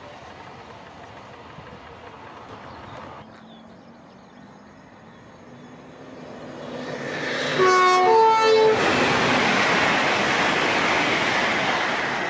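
A train approaches, growing louder from about six seconds in. It sounds its horn briefly with a couple of notes just before eight seconds, then goes by with a loud, steady rush.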